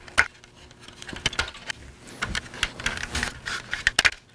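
Plastic speaker grille being worked off a Can-Am Spyder F3 dashboard console: a run of sharp clicks and snaps as its retaining clips release and the plastic parts knock together. The sharpest snaps come about a fifth of a second in and twice near the end.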